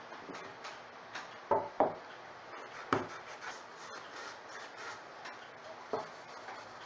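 A rag rubbing Howard's Restor-A-Finish over the wooden case of a Seth Thomas mantel clock, a soft scrubbing noise, broken by a few sharp knocks: two close together about a second and a half in, one near three seconds and another near six.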